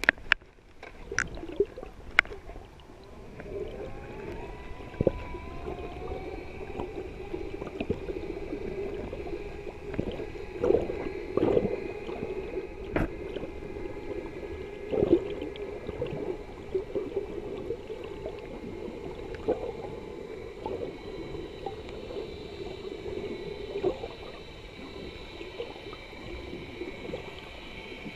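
Underwater recording: the steady drone of a boat motor carried through the water, a few held tones together, setting in about three seconds in with a short rise in pitch. Sharp clicks, knocks and gurgles of water against the camera are scattered throughout.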